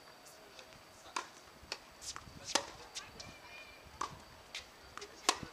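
Tennis balls struck by rackets and bouncing on a hard court: a string of sharp pops, about nine in all, the loudest about two and a half seconds in and near the end.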